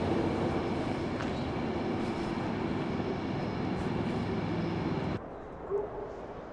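Steady mechanical rumble with a low hum that cuts off abruptly about five seconds in, leaving a much quieter background.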